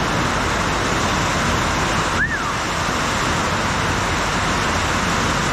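Intense downpour of rain on a tin shed roof: a steady, dense hiss. A short high chirp rises and falls about two seconds in.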